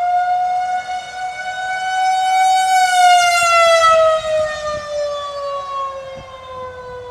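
Outdoor tornado warning siren wailing: a single held tone with many overtones, loudest about three seconds in, then sliding lower in pitch and fading.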